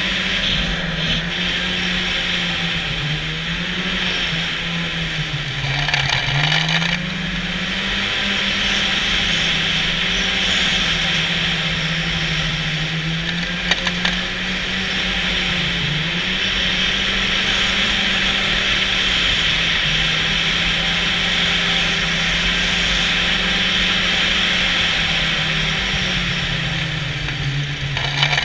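Snowmobile engine running under way, its note dipping and rising again several times with the throttle, over a constant hiss. A brief rougher, noisier patch comes about six seconds in and again at the end.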